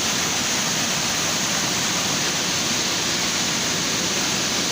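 Rain-swollen stream of floodwater running fast, a loud, steady rush of water.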